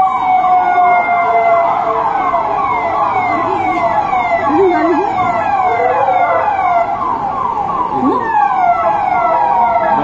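Police vehicle sirens on the fast yelp setting, the pitch sweeping downward several times a second and repeating without a break. Near the start a second siren's slower falling tone overlaps the yelp.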